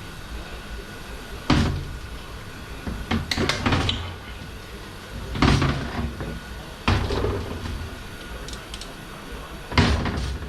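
Metal tools and transmission parts clunking and clattering during teardown of a Ford AOD automatic transmission: about five sharp knocks a second or two apart, some followed by a short rattle.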